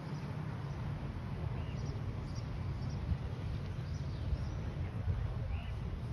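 Outdoor wind rumble on the microphone, with a few short, high bird chirps scattered through.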